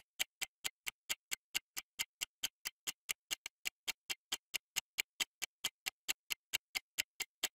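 Countdown timer sound effect ticking steadily, about four or five quick clicks a second, as the quiz answer time runs down.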